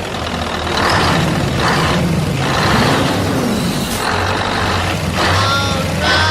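Truck engine running steadily with a low hum, overlaid by repeated bursts of hiss a little under a second apart. About three seconds in, a low tone rises and falls.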